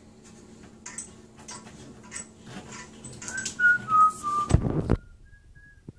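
Faint clicks of handling, then a person whistling a short run of notes that step down in pitch. Near the end a loud rub on the microphone, after which the sound drops away sharply.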